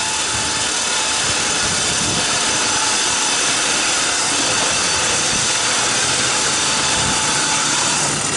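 Motor of a homemade shingle-hoist-style lift running steadily as it winches a load along the hoist, with a loud, even hiss and faint steady tones.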